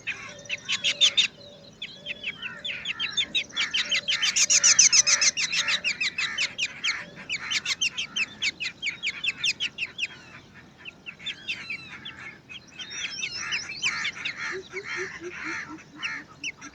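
Black drongo nestlings begging with rapid high chirps, many a second, louder about four seconds in, easing off near ten seconds and rising again. Under them runs a low, evenly repeated call, and a falling series of low notes comes near the end.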